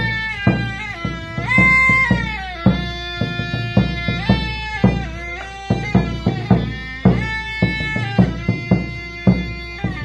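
Traditional Q'eqchi' music: a large rope-tensioned wooden drum beaten about twice a second under a melody on a small wind instrument. The pipe plays held notes, some of them sliding down in pitch.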